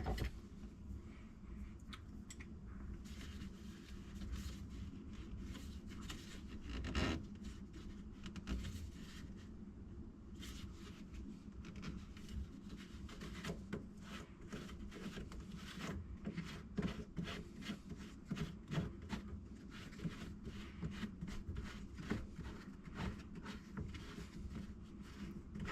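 Scattered handling noises in a cabinet under a kitchen sink: rubbing, scraping and small clicks and knocks, with one louder knock about seven seconds in.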